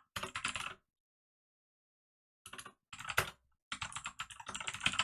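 Computer keyboard typing in short runs of quick keystrokes: one brief run at the start, a pause of over a second, then two longer runs.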